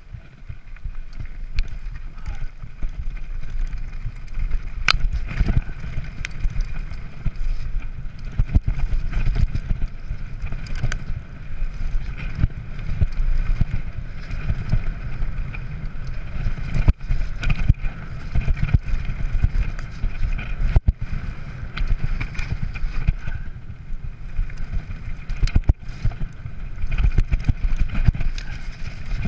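Mountain bike descending dirt singletrack at speed: wind buffeting the microphone and tyres rolling over dirt and stones, with a few sharp clatters from the bike over bumps.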